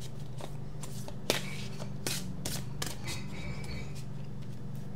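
A deck of tarot cards being shuffled by hand: a string of irregular soft slaps and flicks of card on card, the sharpest a little over a second in, over a steady low hum.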